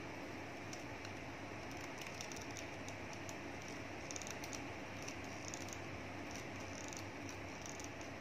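Faint, scattered small ticks and scratches of light handling over a steady background hiss.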